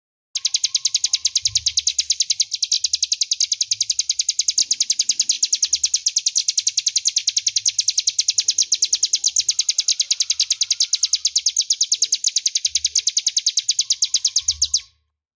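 Ciblek gunung song: a fast, unbroken run of high, sharp chirps, about seven a second, lasting some fourteen seconds and cutting off abruptly.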